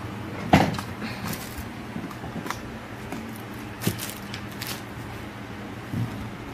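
Handling noise from a soft-sided suitcase being moved and tipped: a few knocks and rustles, the loudest about half a second in, over a steady low hum.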